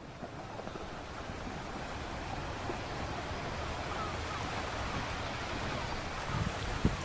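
Small sea waves washing onto a sandy beach between rocks, fading in over the first couple of seconds as a steady wash, with a louder surge near the end.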